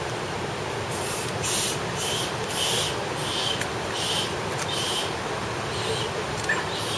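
Steady rush of running hot-spring water, with a faint hiss that pulses every half second or so, and one brief squeak near the end.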